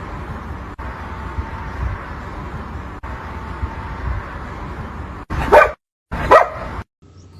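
A dog gives two short, loud barks near the end, about a second apart, after several seconds of steady rumbling background noise.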